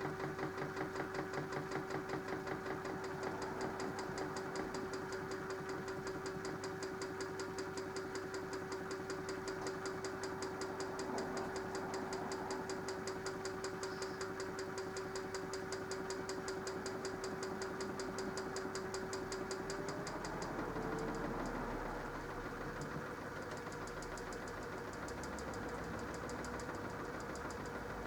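Minicolo mini washing machine running a wash, its motor giving a steady hum with a fast rhythmic pulsing. About two-thirds of the way through, the motor's pitch glides up a little and holds there.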